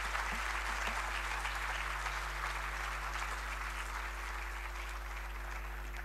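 A large audience applauding: dense, even clapping that holds steady throughout, with a faint low electrical hum underneath.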